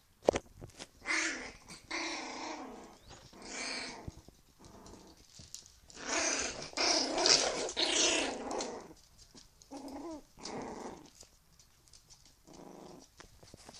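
Puppies growling in play, in a string of short bursts, the longest and loudest lasting about three seconds in the middle. A sharp click sounds just after the start.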